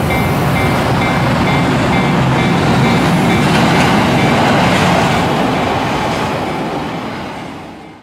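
Japanese railway level-crossing warning bell ringing in quick repeated pulses, about two or three a second, over the rumble of a passing train. The train noise swells and then fades, and the bell fades out about halfway.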